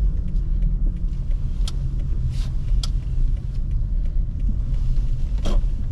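A car driving slowly, heard from inside the cabin: a steady low rumble of engine and tyres, with a few faint light clicks or knocks.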